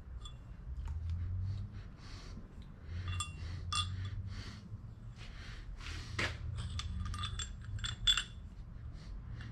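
Small steel clamp parts and a lathe steady rest being handled and set on a milling machine table: a run of light metal clinks and taps, some ringing briefly, with scraping handling noise. The sharpest clink comes about eight seconds in.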